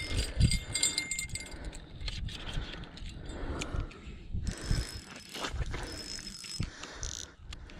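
Small spinning reel on an ice-fishing rod being cranked to wind in line with a fish on, a light mechanical rattle broken by irregular clicks and handling knocks.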